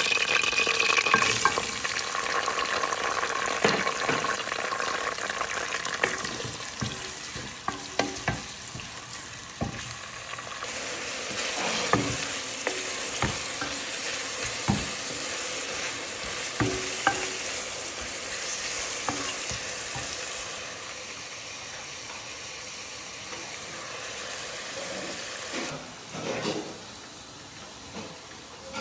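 Sliced onions sizzling in hot oil, stirred with a wooden spoon that knocks against the metal pot from time to time.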